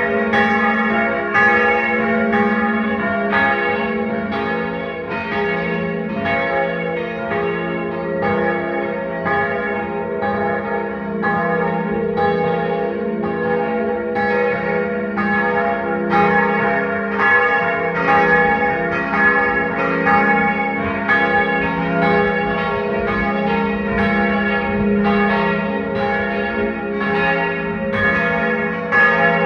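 Several church bells ringing together in a full peal, their strokes overlapping densely over the long, steady hum of the deepest bell.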